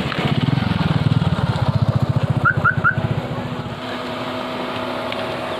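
A vehicle engine running close by with an even, rapid pulse, easing off a little under four seconds in. Three quick rising chirps come about two and a half seconds in.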